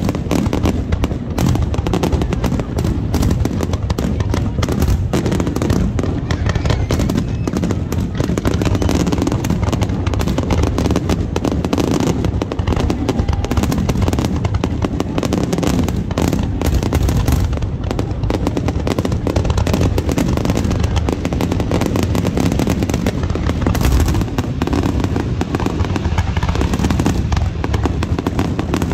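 Display fireworks: aerial shells bursting in a rapid, unbroken string of booms.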